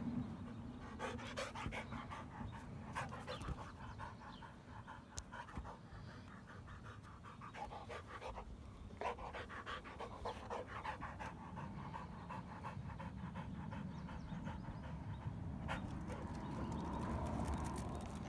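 A Rottweiler panting rapidly, worn out from running.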